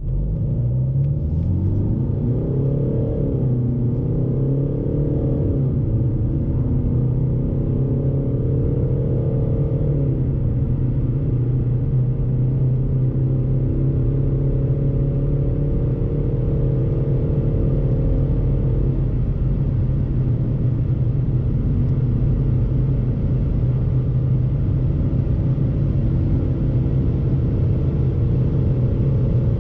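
A Mercedes-Benz E250 CDI's 2.1-litre four-cylinder diesel accelerating hard, heard inside the cabin over a heavy low rumble. The engine's pitch climbs and drops back at each upshift of the seven-speed automatic, four times, with the shifts coming further apart as speed builds, then climbs slowly again near the end.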